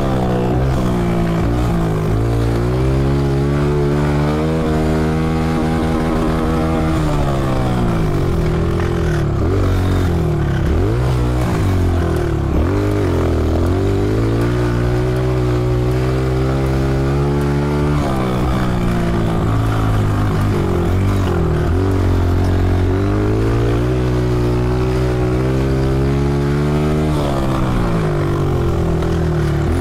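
Honda CRF125F's single-cylinder four-stroke engine under hard throttle, its pitch climbing for several seconds and then dropping sharply as the throttle is closed, about four times over.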